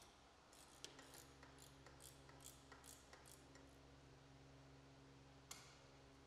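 Near silence: faint ticking, about three clicks a second for a few seconds, over a low steady hum.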